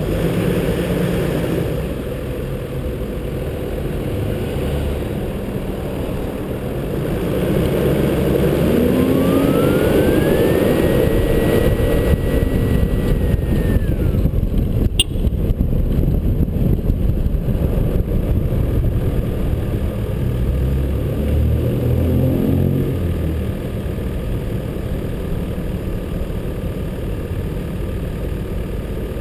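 A 4WD driving through city streets, heard from a camera mounted on the vehicle: steady engine and road noise. About a third of the way in the engine pitch rises as it accelerates, with a whine that climbs, holds for a few seconds and falls away. There is a single sharp click about halfway through.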